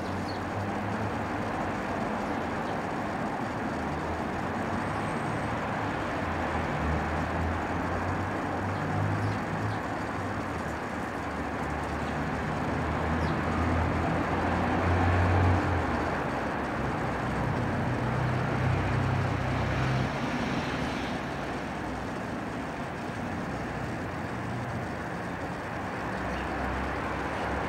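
Background road traffic noise: a steady, broad rumble of passing vehicles that swells a little past the middle and eases again.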